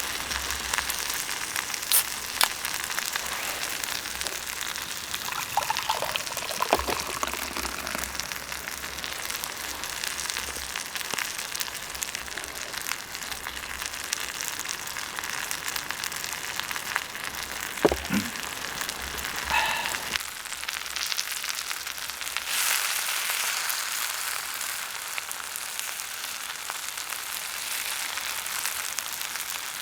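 Food sizzling and hissing in an iron wok over a campfire, with scattered sharp crackles and a few brief metallic squeaks. The sizzle turns brighter and thinner about two-thirds of the way through.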